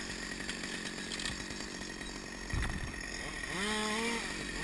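Top-handle chainsaw idling after a cut, its engine running steadily at low revs, with a dull knock about two and a half seconds in.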